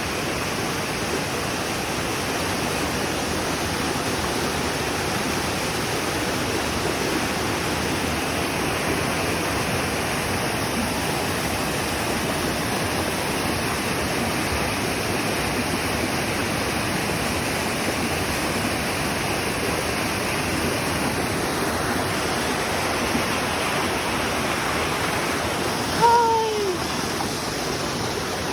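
Steady rush of a waterfall and rocky mountain stream. About two and a half seconds before the end, a short call that falls in pitch rises briefly above the water.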